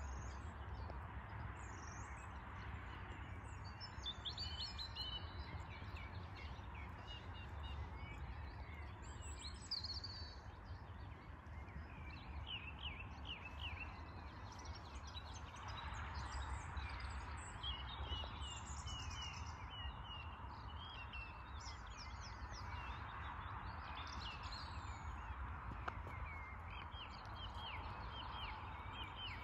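Songbirds chirping and singing in many short, repeated phrases over a steady low background rumble.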